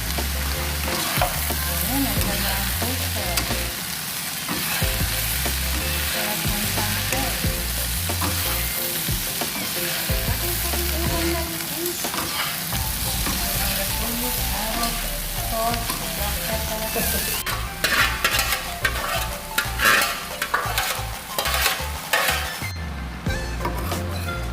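Stir-fry sizzling in a hot pan with a steady frying hiss, as pancit canton ingredients cook. About two-thirds of the way through, quick scraping and knocking strokes of stirring against the pan get louder. The sizzle fades away near the end.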